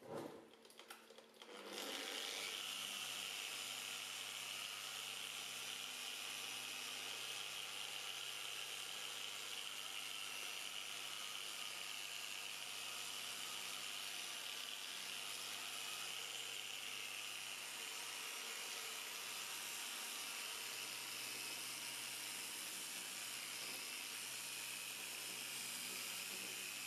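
Small handheld electric polisher with a pad working a plastic headlight lens: a few knocks as it is set against the lens, then about two seconds in the motor starts and runs steadily to the end.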